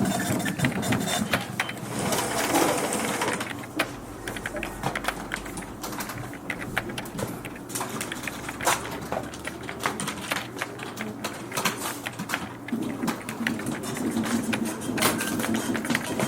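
Office ambience: keyboard typing, a dense, irregular run of small key clicks, with low background chatter that grows louder near the end.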